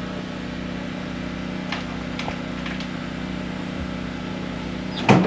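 Skid steer engine idling steadily, with a few light clicks and one sharp knock near the end.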